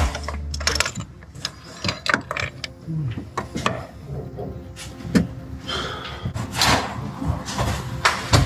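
Scattered clicks, knocks and scraping as an ignition coil and spark plug are worked out of a tight engine bay by hand.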